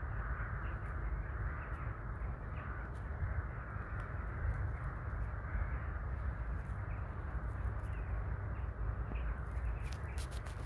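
A flock of crows cawing, many calls overlapping into a continuous chorus, over a steady low rumble of wind. A few short clicks come near the end.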